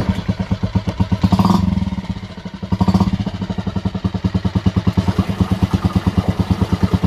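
Small Yamaha four-stroke outboard motor, just started, running with a fast, even putter. It revs up briefly twice, about one and a half and three seconds in, then settles back to a steady idle.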